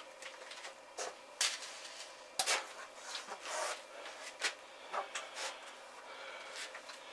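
Scattered handling noises: light rustles, clicks and knocks as a wicking mat is pressed down over a shelf trough and a plastic bucket is picked up, with a sharp click about two and a half seconds in.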